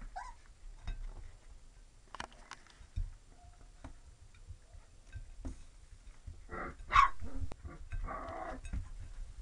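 Labrador-retriever mix puppies giving short yips and whimpers, loudest about seven seconds in, with a few light knocks in between.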